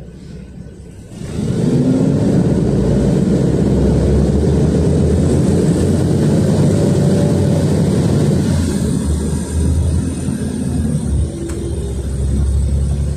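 City bus with a Weichai compressed-natural-gas engine pulling away and accelerating, heard from inside the cabin. The engine noise jumps up sharply about a second in and stays loud, with a rising tone under it and a brief dip partway through.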